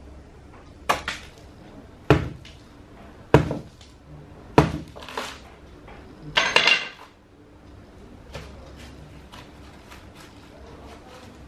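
A large chopping knife hacking into a raw jackfruit: four heavy chops a little over a second apart, then a longer tearing, crunching noise as the split fruit is pulled apart.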